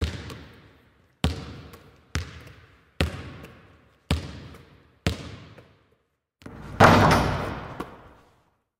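A basketball bounced six times on a hard court, about a second apart, each bounce echoing away, followed about two-thirds of the way through by a louder, longer crash.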